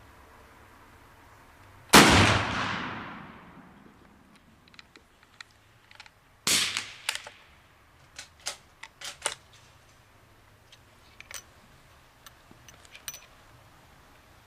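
Werndl M1873/77 single-shot breech-loading rifle fired once about two seconds in, a sharp report that echoes away over about two seconds. A few seconds later comes a second, weaker clank, followed by a run of short metallic clicks and clanks from the rifle's action being worked.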